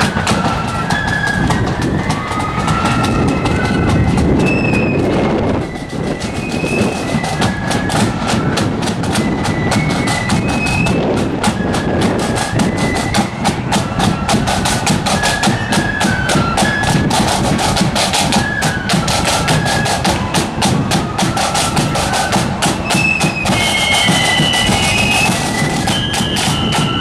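Marching flute band playing a tune: flutes carry a high melody over fast, rattling side-drum beats and a bass drum.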